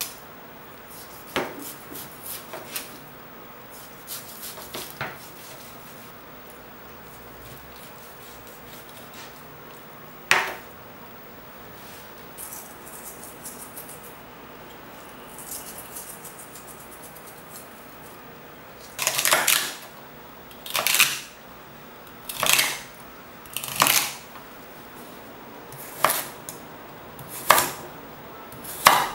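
A ceramic knife slicing raw beef on a wooden cutting board, with a few soft knocks near the start. Later come crisp chops through a carrot onto the board, about one every second and a half. These are the loudest sounds.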